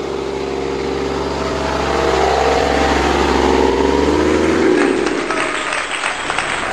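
A small cargo truck's engine comes up from behind and passes close by, growing louder with its pitch rising and falling, and its deep rumble drops away about five seconds in as it pulls ahead. Crackling noise follows once it has passed.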